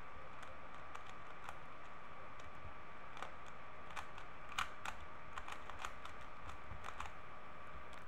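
Plastic clicking of a 3x3 Rubik's cube's layers being turned quickly by hand, an irregular run of sharp clicks with the loudest about four and a half seconds in. A faint steady high hum lies underneath.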